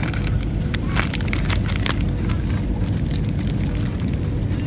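Steady drone of a Boeing 737-800's cabin in flight, with the crinkling and crackling of plastic snack packaging being handled close by.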